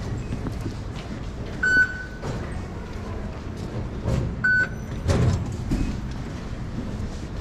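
MRT station fare gates: two short high beeps, card-reader acknowledgements about two and a half seconds apart, and shortly after the second, a brief rush of noise as the gate's flap doors swing open, over a steady low station hum.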